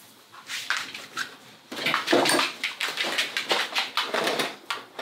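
Dog making short, irregular vocal sounds while playing, starting about two seconds in after a quiet moment.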